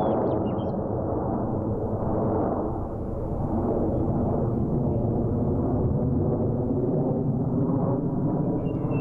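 Blue Angels F/A-18 Hornet jets flying overhead in a four-ship formation: a dense, steady jet-engine rumble, briefly dipping about three seconds in.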